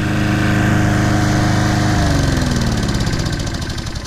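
Troy-Bilt TB230 walk-behind mower's Briggs & Stratton engine running steadily. About two seconds in, its pitch slides down and the sound fades as the engine winds down after being shut off.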